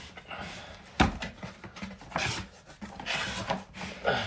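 Cardboard shoebox and its paper packing being handled and rustled as it is opened, with a sharp knock about a second in.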